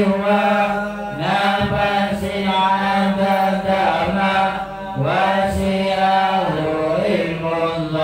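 Congregational Islamic dhikr chanting in Arabic by men's voices, led through a microphone, in long drawn-out sung phrases. New phrases begin about a second in and again about five seconds in.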